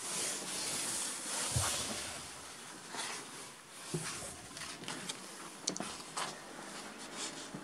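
Rustling and scattered soft knocks from someone moving about a carpeted boat cabin with a handheld camera: footsteps and handling noise, with a low thud about a second and a half in.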